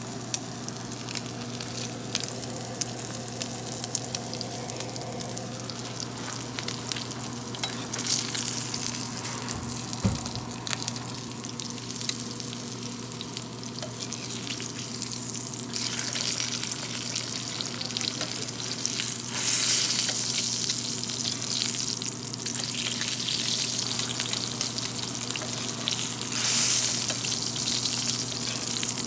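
A5 wagyu striploin searing in a cast-iron skillet, the meat and its rendered fat sizzling steadily. The sizzle grows louder about halfway through and swells twice near the end, with one dull knock about a third of the way in.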